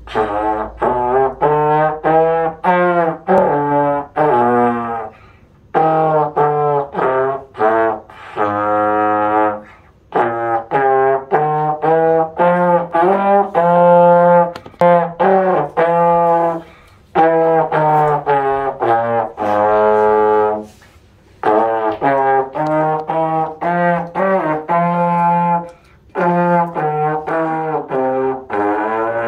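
Slide trombone playing a simple practice tune: phrases of short separate notes, several ending on a longer held note, with short pauses for breath between phrases.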